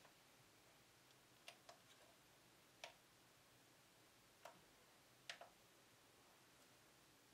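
Faint, scattered clicks of buttons being pressed on an Akai MPC One sampler, about six in all and some in quick pairs, over near silence.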